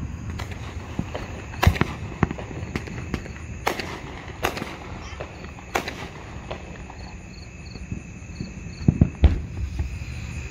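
Aerial fireworks bursting overhead: a string of sharp bangs and cracks about a second apart, with a cluster of heavier booms near the end.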